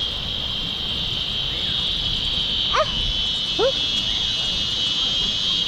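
Steady high-pitched drone of insects in the heat, with two short rising yelping calls about three seconds in.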